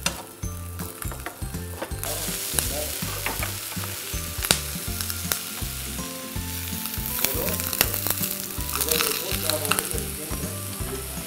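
Diced vegetables (brinjal, zucchini, bell peppers) sizzling in hot oil as they are stir-fried in a nonstick frying pan, with scattered clicks of a wooden spatula against the pan. The sizzle grows louder about two seconds in.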